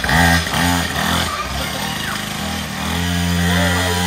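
Small petrol engine of a mini dirt bike blipped several times in quick succession, its pitch rising and falling with each blip. It then runs at a steady pitch as the bike moves off.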